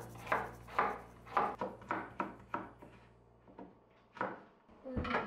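Kitchen knife chopping a carrot into julienne strips on a wooden cutting board: a regular run of knife strikes, about three a second, that slows and fades after about three seconds. A single louder knock comes near the end.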